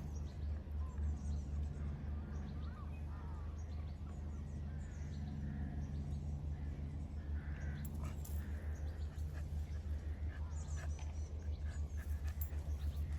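Domestic cat purring close to the microphone: a steady low, rapidly pulsing rumble. Faint bird chirps sound above it.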